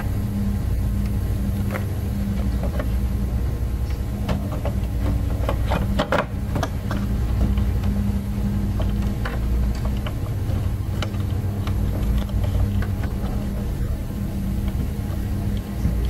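Scattered plastic clicks and knocks as a blower motor and its squirrel-cage fan wheel are handled and fitted into a window air conditioner's housing, with a cluster about six seconds in. Under them runs a steady low, engine-like hum.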